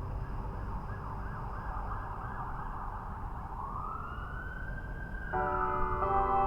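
An emergency vehicle siren wailing, its pitch rising and falling, over a steady low rumble. About five seconds in, bells begin chiming with several ringing tones at once.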